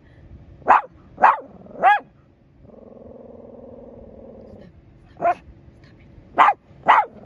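Dog barking: three sharp barks in quick succession, a pause holding a low, steady drone, then three more barks.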